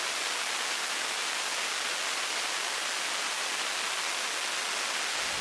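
Pratt & Whitney F100 afterburning turbofan running with its afterburner lit in a hush house test cell: a steady, even hissing roar with little deep rumble.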